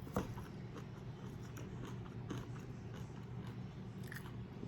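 A person chewing a mouthful of pickled vegetables and rice, with faint crunches and small wet mouth clicks.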